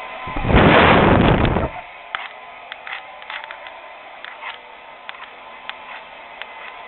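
Hand-held hair dryer running: its airflow hits the microphone in a loud blast for about a second near the start, then it settles to a steady whir with faint clicks.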